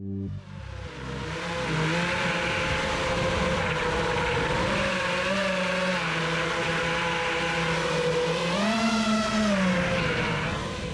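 Electric motors and propellers of an FPV quadcopter whirring steadily, the pitch shifting with throttle and rising then dropping again about eight seconds in; the sound begins to fade near the end.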